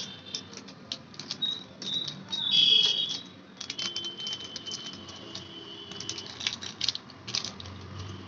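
Plastic spice packet crinkling and being tapped as garam masala powder is shaken out of it, a run of quick irregular crackles and clicks.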